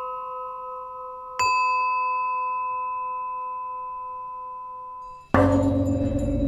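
A struck bell or chime tone rings out and fades slowly, struck once more about a second and a half in. About five seconds in, a louder, denser sound cuts in abruptly, with a steady low drone and faint high tinkling.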